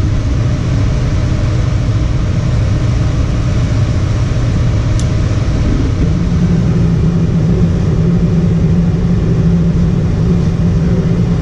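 Gas furnace running with its burners lit and blower going: a steady low rumble and hum, the hum growing stronger about six seconds in.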